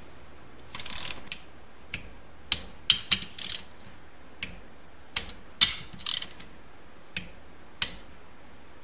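Ratcheting torque wrench clicking as 6 mm crankcase bolts are run down and torqued to 8 foot-pounds: scattered single clicks and a few short runs of ratchet clicks.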